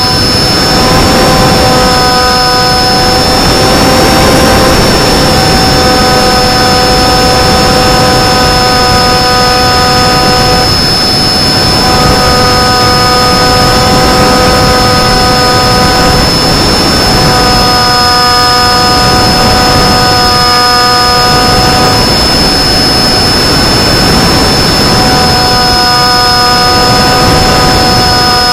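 Electric motor and propeller of an FPV flying wing in flight: a steady whine with evenly spaced tones that fade and return, over a loud rush of wind noise.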